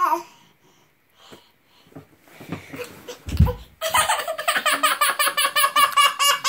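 A toddler tumbles off a glider ottoman and lands on a carpeted floor with a dull thump a little over three seconds in, then breaks into loud, rapid stuttering crying.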